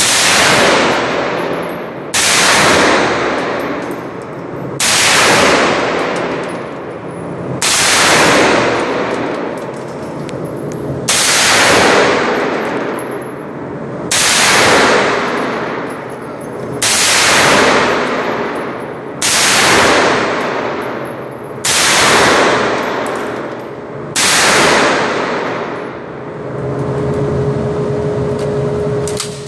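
MP5 submachine gun fired in single shots at an indoor range: ten shots, one every two to three seconds, each ringing on in a long echo off the range walls.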